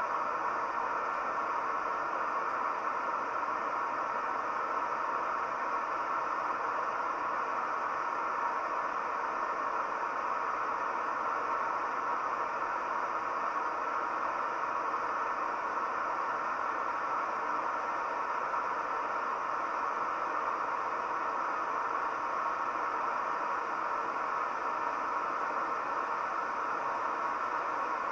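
Camp Chef Mountain Series Stryker canister stove's gas burner running at full flame as it heats water in its pot: a loud, steady, even hiss that does not change.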